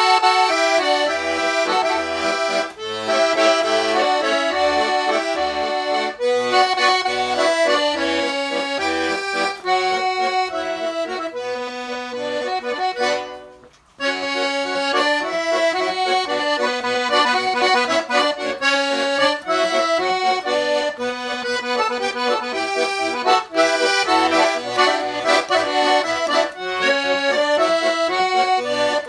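A Russian garmon (button accordion) plays a melody with chords over a rhythmic bass on the left-hand buttons. It breaks off briefly about halfway through, then the tune picks up again.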